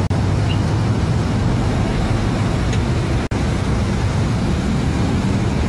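Steady low engine hum with road traffic noise, with a brief dropout a little past halfway.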